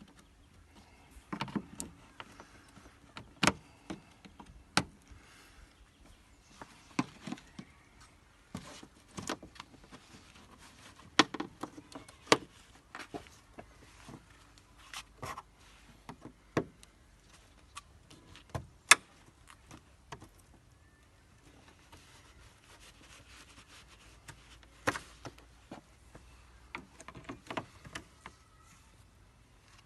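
Irregular sharp clicks, knocks and clatters of hand tools and metal and plastic car parts being handled while the radiator and AC condenser are unbolted and pulled out, with quiet gaps between them.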